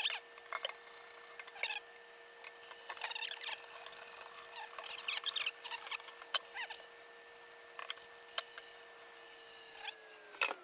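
Brush bristles scrubbing a wet circuit board in short, irregular scratchy strokes. A steady faint whine runs underneath and falls away in pitch near the end.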